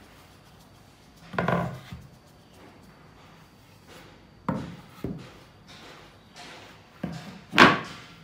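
Plywood panels being set down and slid into place on a plywood worktable: about five separate wooden knocks with short scrapes between them, the loudest near the end.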